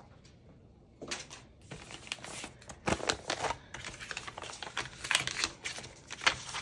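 Small merchandise items such as plastic-sleeved photocards and packaging being handled. After a quiet first second there is a rapid, irregular run of light clicks and crinkles.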